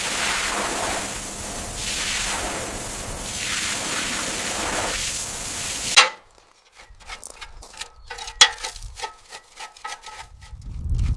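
A loud rushing noise, swelling and fading several times, that cuts off abruptly about six seconds in. It is followed by scattered light knocks and taps.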